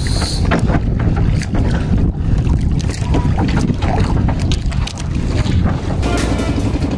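Wind buffeting the microphone aboard a small wooden outrigger fishing boat at sea: a heavy, steady low rumble with crackles, over the sound of the open water. Music fades in faintly near the end.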